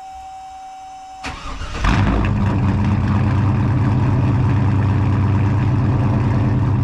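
Cold start of an Oldsmobile Cutlass Supreme's swapped LS1 V8. A steady high whine is heard first. The starter cranks about a second in, and the engine catches just under two seconds in. It then settles into a steady, loud idle.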